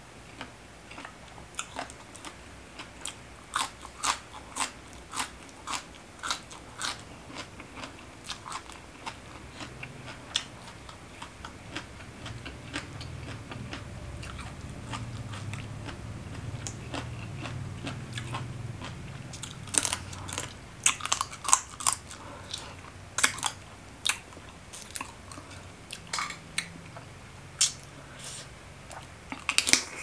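Close crunching and chewing of a spicy seafood papaya salad with raw water spinach stems and crab. Sharp crisp crunches come throughout and are loudest in clusters about two-thirds of the way in and at the very end.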